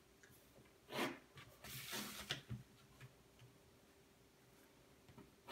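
Clear plastic ruler tapped down and slid across drawing paper: a faint tap about a second in, then a short scraping rustle, on a drafting table.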